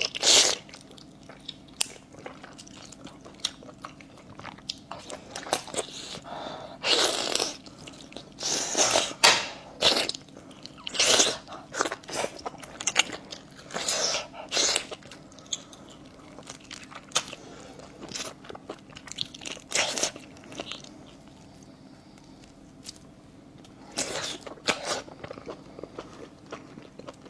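Close-miked chewing and biting of braised fish viscera: wet mouth sounds and crunchy bites come in irregular bursts, with short quieter pauses between them.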